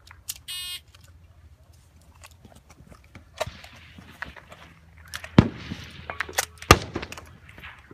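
A shot timer gives one short electronic beep, the start signal for the stage. It is followed by scuffing and handling noise on dirt, and two sharp bangs about a second and a half apart, which are the loudest sounds.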